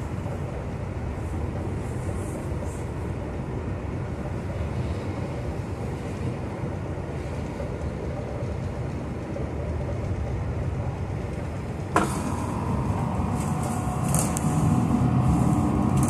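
Passenger train running, heard from inside the carriage: a steady rumble of wheels on rail. A sharp click comes about twelve seconds in, and after it the running noise grows louder, with faint steady tones.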